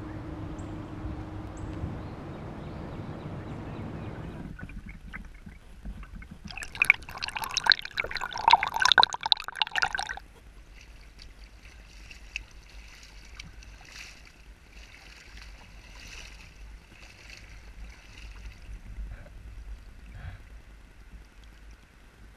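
Rubber boots wading through shallow, muddy floodwater, a soft swishing splash with each step. About six and a half seconds in comes a loud burst of rapid splashing lasting about three seconds, after a low rumble at the start.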